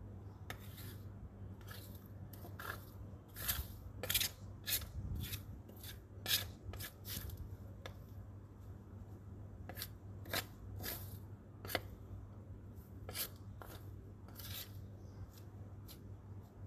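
Short hand broom sweeping dry leaves and plant clippings across concrete paving, in quick, irregular scratchy strokes, some louder than others.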